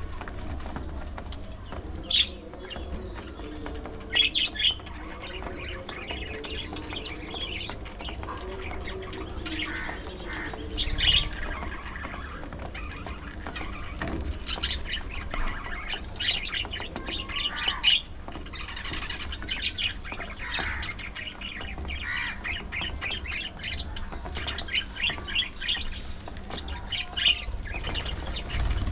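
A small flock of budgerigars chirping and squawking, many short, sharp calls overlapping with hardly a pause, a few of them much louder than the rest.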